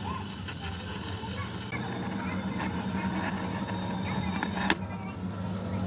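A steady low mechanical hum with scattered light clicks and taps, and one sharp click near the end.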